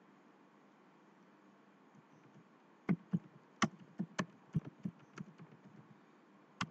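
Typing on a computer keyboard: about ten separate keystrokes spread over roughly four seconds, starting about three seconds in after a quiet stretch.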